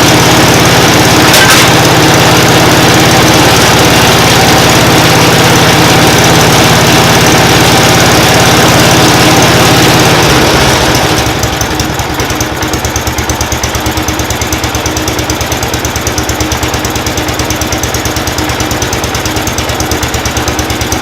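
1970 Cub Cadet Model 147 garden tractor's single-cylinder Kohler engine running fast and steady. About halfway through it is throttled back, dropping to a slower, quieter, evenly pulsing idle. It is running a little rough, which the owner expects a carburettor rebuild to cure.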